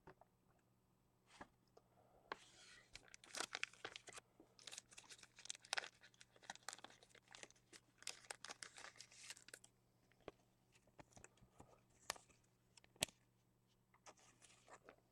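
Faint crinkling and tearing of a foil trading-card pack wrapper and the handling of cards, a dense run of crackles from about two seconds in until near ten seconds, then a few scattered clicks and rustles.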